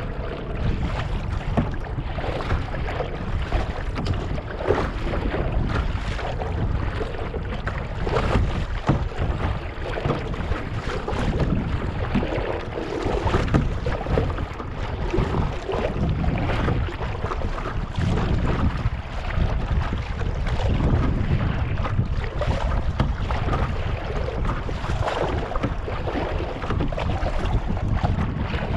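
Wind buffeting the microphone with a steady low rumble, while small waves lap and splash irregularly against a kayak's bow.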